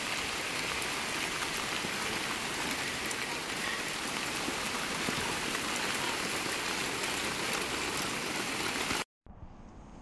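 Heavy rain pouring down steadily, with many individual drops ticking close by. It cuts off abruptly about nine seconds in.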